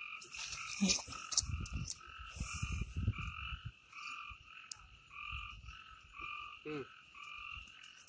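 Frogs calling at night in a steady series of short, evenly spaced notes, about two a second, each with a lower and a higher pitch. Low rustling and a few sharp knocks close to the microphone come from hand handling in the first half.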